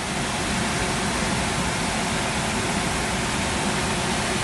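Waterfall rushing: the steady, loud roar of falling water crashing onto rock, an even noise with no breaks.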